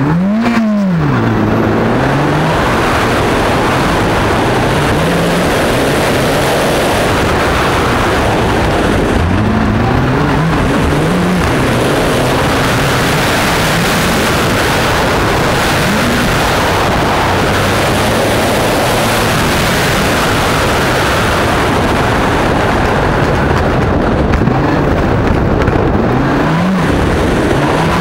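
Mitsubishi Lancer Evo X N4 rally car's turbocharged four-cylinder engine under hard driving on gravel, its note rising and dropping again and again as it accelerates and lifts between corners, over a steady rush of tyre and gravel noise.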